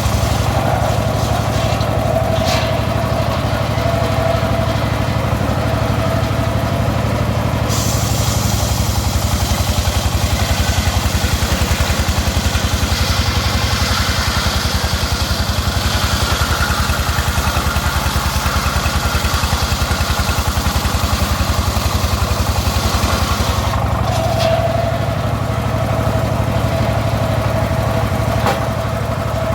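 Engine-driven homemade circular saw running steadily, its spinning blade giving a steady whine. From about a quarter of the way in until near the end, the blade is cutting through teak wood: the whine sinks under a rising hiss of sawing, then returns as the blade spins free.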